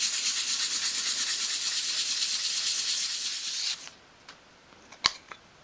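Fine-grade sandpaper rubbed by hand in small circular motions over a thin sheet of wood, a steady scratchy hiss as the surface is sanded all over before wood dye. The sanding stops a little before four seconds in, and a single light click follows about a second later.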